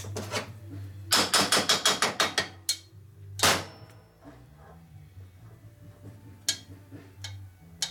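A quick, even run of about ten sharp metallic taps lasting about a second and a half, then a single louder hit about a second later, and a few lighter clicks near the end, over a steady low hum.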